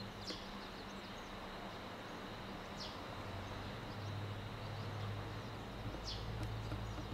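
Steady low hum from a stopped JR East 209-series electric train's onboard equipment, over a constant high insect drone. Three short falling bird chirps come about a second apart, then near the middle and toward the end.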